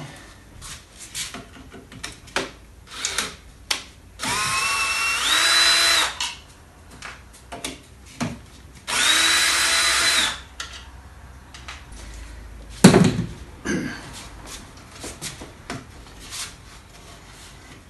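Cordless screwdriver whining in two bursts of about two seconds each, undoing the screws on the back of a Mercedes alternator; the first burst steps up in pitch partway through. Light clicks and knocks of handling the parts come between the bursts, with one sharp knock near the middle.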